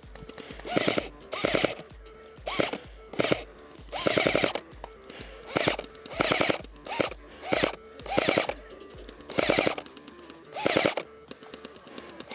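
Airsoft MP5 electric gun fired in about a dozen short full-auto bursts, each a quick string of shots over a gearbox motor whine that rises and falls.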